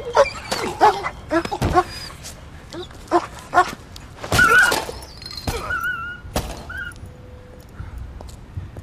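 Sharp stabbing hits and a man's pained cries, then a small terrier yelping and whimpering in high, wavering cries amid heavy thuds about halfway through.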